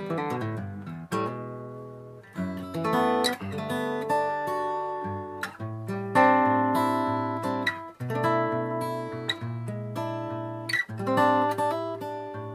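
1975 black-label Yamaha FG-150F acoustic guitar being played. Chords and notes are struck about every second or two and left to ring out before the next.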